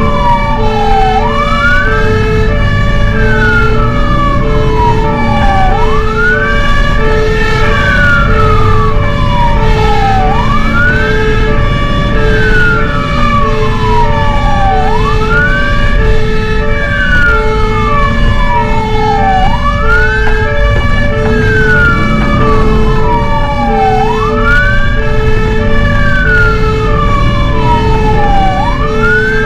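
Fire engine siren wailing: each cycle rises quickly and falls slowly, repeating about every four and a half seconds. It runs over a second steady pulsing tone about once a second and the low rumble of the truck running, as on an emergency run.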